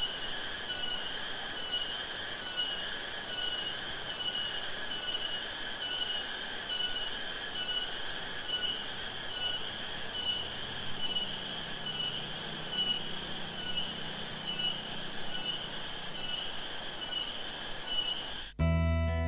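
A steady insect chorus, its high call pulsing about once a second. A faint low hum comes in about halfway through, and acoustic guitar music starts just before the end.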